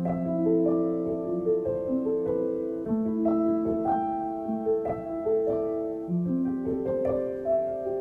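Background music: a gentle piano melody of sustained notes played at an unhurried pace.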